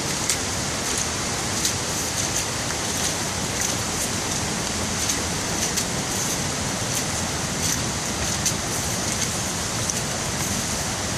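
Heavy tropical rain falling on jungle foliage and a muddy trail: a steady hiss scattered with sharp, irregular taps of drops.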